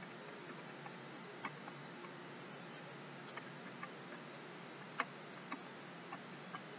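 Faint, irregular taps and clicks of a stylus on a pen tablet as digits are handwritten, over a steady low hiss; the sharpest tap comes about five seconds in.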